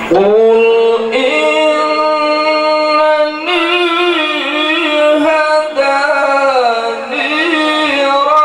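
A man reciting the Quran in the melodic tilawah style into a microphone, holding long ornamented notes that waver in pitch and shift every second or two.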